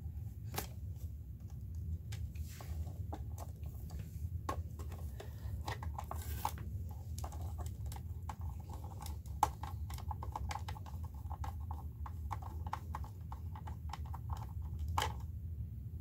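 Light, irregular clicks and scrapes of hands handling wires and plastic terminal parts, with a sharper click about nine seconds in, over a steady low hum.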